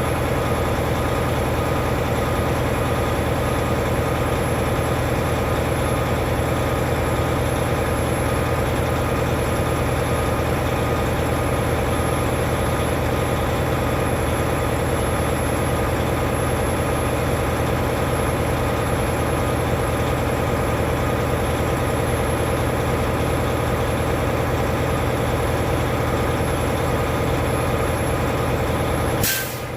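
Semi-truck diesel engine idling steadily, broken off briefly near the end.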